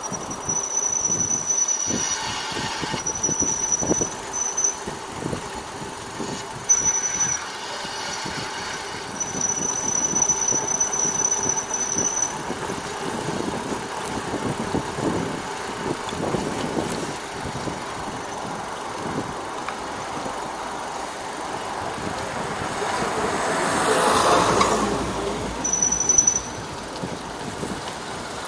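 A high-pitched squeal held at one steady pitch, switching on and off in stretches of half a second to about three seconds, over continuous road and wind noise. A motor vehicle passes about 24 seconds in, swelling and fading.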